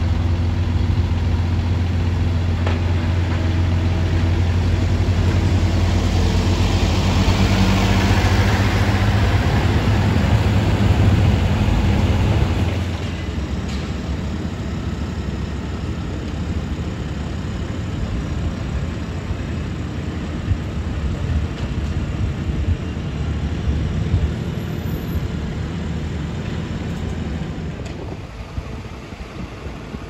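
Diesel engines of construction machinery idling at a road-works site, a steady low hum. About twelve seconds in it gives way to a quieter, rougher engine rumble.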